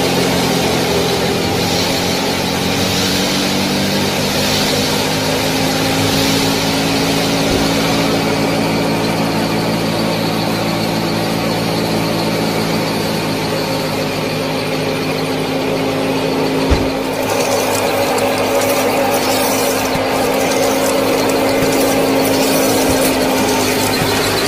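Small motor of a DIY mini tractor and thresher machine running steadily, its whine held at one pitch. One sharp knock about 17 seconds in, then a rougher crackling on top of the motor.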